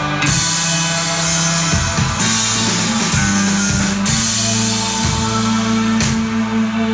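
Live instrumental doom rock band playing: an electric bass holds long low notes that change every second or two, over a drum kit with repeated cymbal crashes.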